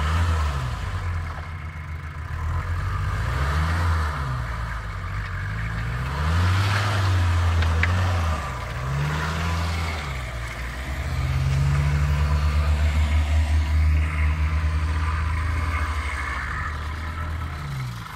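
Off-road 4x4's engine revving, its pitch rising and falling again and again as the throttle is worked.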